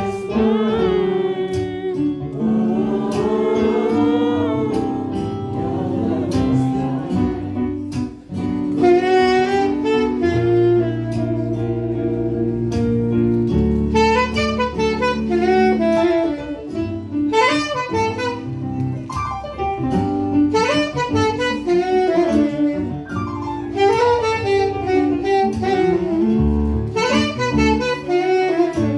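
Live jazz: a saxophone plays a winding melodic line over held chords on a Yamaha MO8 synthesizer keyboard, with sustained low notes underneath.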